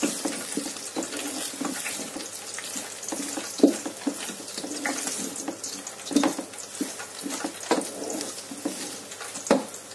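Wooden spoon stirring raw long-grain rice frying in hot oil in a pot: a steady sizzling hiss with irregular scrapes and knocks of the spoon through the grains and against the pot.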